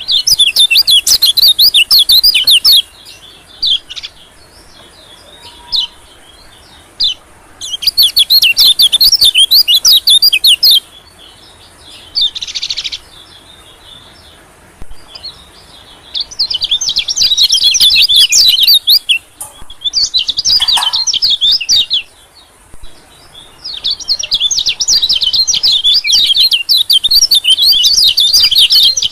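White-eye (pleci) twittering song used as a bird lure: bouts of rapid, high chirping a few seconds long, repeated about five times with short pauses between.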